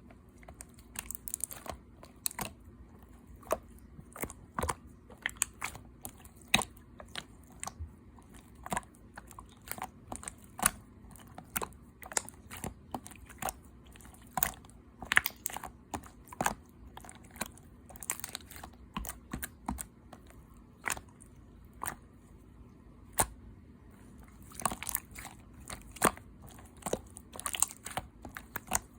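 Clear slime being squished and pressed by hand, making irregular sharp clicks and pops, one to a few a second.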